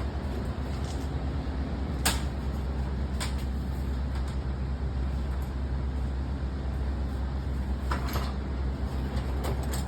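Steady low hum with a few sharp clicks and knocks, the loudest about two seconds in and a pair around eight seconds, like tools or parts being handled.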